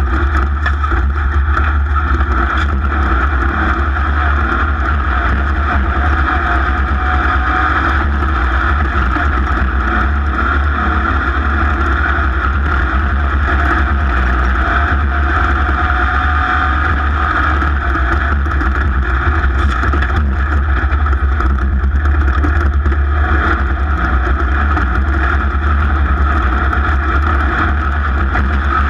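A race vehicle's engine running hard and steady, recorded onboard, with a heavy low rumble underneath.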